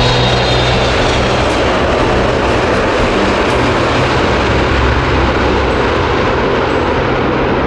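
Steady roar of a Boeing 777 freighter's twin GE90 jet engines as the airliner rolls out down the runway just after touchdown.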